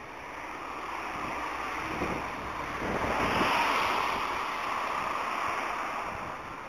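A vehicle passing on a wet road: tyre hiss on the wet surface swells to a peak about halfway through, then fades.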